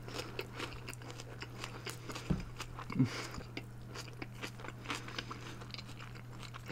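Close-miked biting and chewing of a burger: a bite at the start, then many small wet mouth clicks while chewing, with two low thumps about two and three seconds in. A steady low hum lies underneath.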